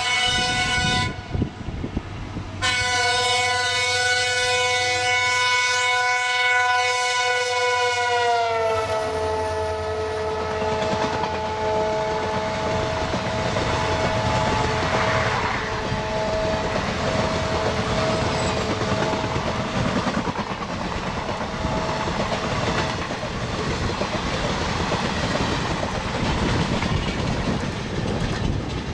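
A train horn passing close by: a short blast, a break of about a second and a half, then a long blast whose pitch drops about eight seconds in as the horn goes past. Its lower tone lingers faintly for several more seconds under the steady clatter and rumble of train wheels on rail.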